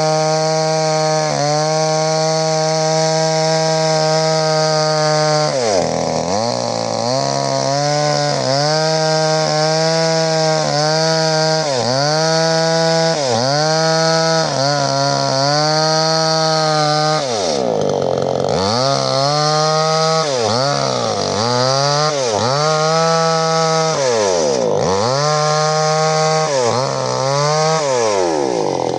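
A 58 cc Mollar two-stroke chainsaw running at high revs while cutting wood. It holds a steady pitch at first; then the engine note dips and recovers again and again, about once a second, as the chain bogs in the cut, with deeper dips in the second half.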